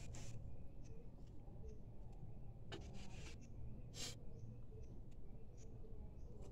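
Faint scraping and rustling of tableware being handled on a bamboo-slat table, with a short sharp scrape about four seconds in, over a steady low hum.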